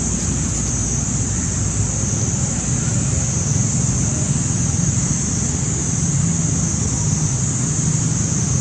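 Steady low wind rumble on the microphone, with a constant high-pitched hiss above it.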